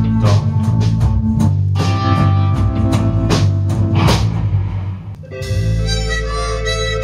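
Live band playing: strummed acoustic guitar, drums and bass, then about five seconds in the beat drops away and a harmonica comes in with long held notes over the band.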